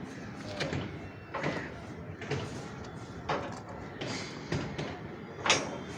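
Irregular knocks and clanks of construction work, several a second at times, with one sharper bang about five and a half seconds in, over faint distant voices.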